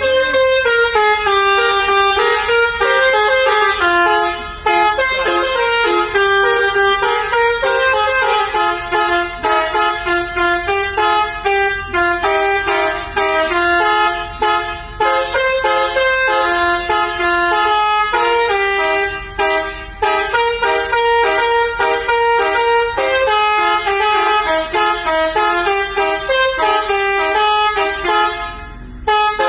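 Indonesian 'telolet' Basuri musical bus horn playing a melody of quick stepped notes, with a brief break just before the end and a low rumble underneath.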